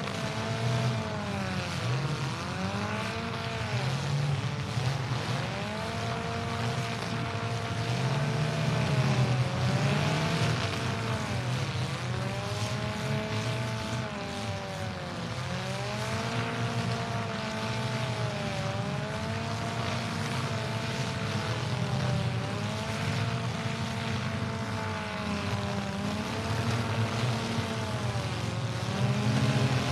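Compact demolition derby cars' engines revving hard, one engine's pitch rising and falling again and again every second or two over a steady low rumble of other engines.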